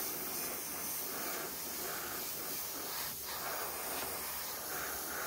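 Airbrush blowing a steady hiss of compressed air while its nozzle is being cleaned.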